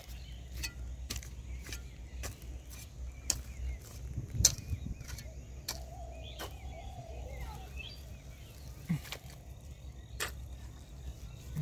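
Metal spade pushed and levered into wet clay mud, with scattered sharp clicks over a steady low rumble.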